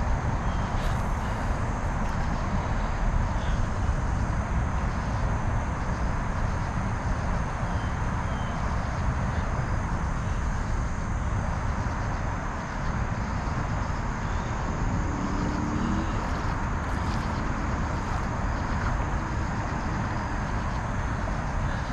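Steady rushing noise from the open river around a kayak, heaviest in the low end: moving water and wind on the microphone.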